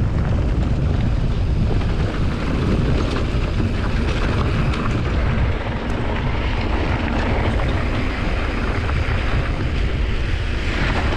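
Wind buffeting the microphone of a mountain bike speeding downhill, with the tyres crunching over loose gravel and scattered clicks and rattles from the bike on the rough dirt road.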